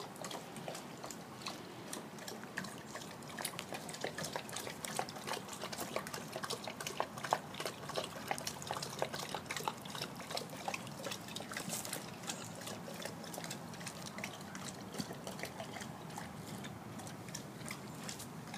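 A dog lapping water from a plastic bowl: a long run of quick, wet laps, several a second.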